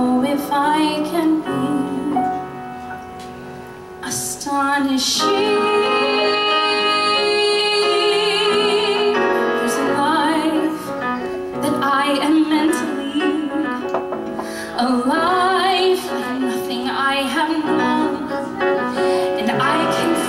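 A woman sings a musical-theatre ballad in full voice with wide vibrato on the held notes, accompanied by piano. A softer passage comes about two to four seconds in.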